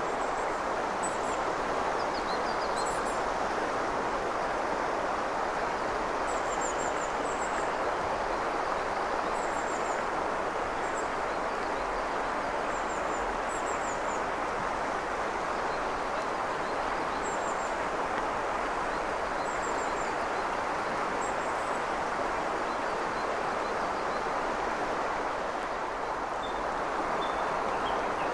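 Shallow mountain river running steadily over a stony bed, an even rushing sound, with small birds giving short, high chirps now and then.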